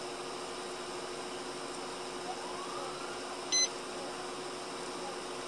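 Steady cabin hum of a parked police cruiser, with a single short electronic beep about three and a half seconds in. Beeps like it recur every few seconds.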